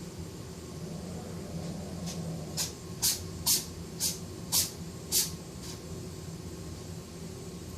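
A pet growls low and steadily throughout. From a couple of seconds in, about six short, sharp sneezes come in quick succession, roughly two a second.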